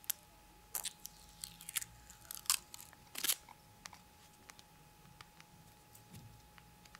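Handling noise as a phone and its plastic wrapping are turned over in the hands: a cluster of short crackly rustles and clicks from about one to three and a half seconds in, then only a few faint ticks.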